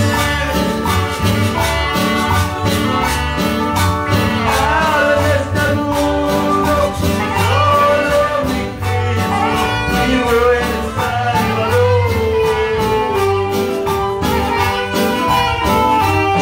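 Worship chorus (coro): a voice singing over a band with bass and a steady beat.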